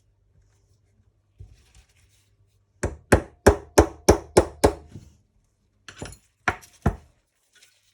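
Sharp knocks on a stuck carburettor of a model nitro engine, tapping it loose. There is a quick run of about seven knocks, roughly four a second, then three more about a second later.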